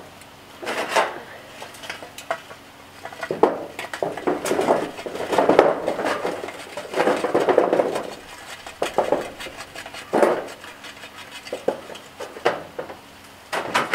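Lit charcoal briquettes clattering out of a metal chimney starter as it is tipped on its side and shaken over a sheet-metal surface. They come out in a string of irregular rattling bursts with sharp metal clinks, thickest in the middle.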